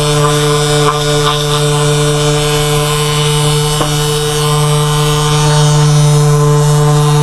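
A steady low hum at one constant pitch, with even overtones, at a fairly loud level. There is a single faint click about four seconds in.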